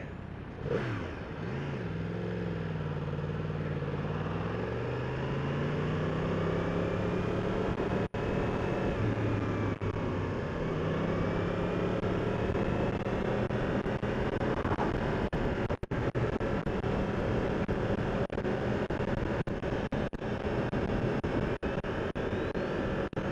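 2015 Yamaha R1's inline-four engine pulling away and then cruising at moderate revs: its pitch dips, climbs over the first several seconds, then holds steady, under a constant rush of wind and road noise. The sound cuts out briefly a few times.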